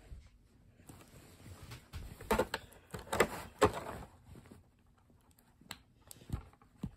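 Plastic clicking and scraping from the tail of a NECA Bio Godzilla action figure being pushed and twisted against its body while someone tries to attach it. The sound comes in two short bursts of handling around two and three seconds in, then a few single clicks near the end. The tail is hard to get on.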